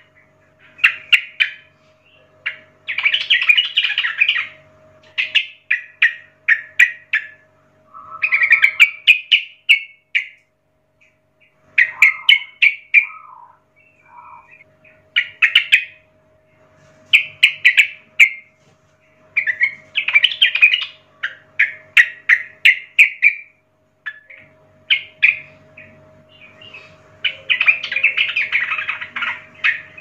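Yellow-vented bulbul (trucuk) singing: a run of short, rapid chattering phrases, each a second or two long, separated by brief pauses.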